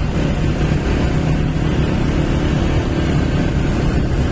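Motorcycle engines running steadily while riding along, with wind rumbling on the microphone.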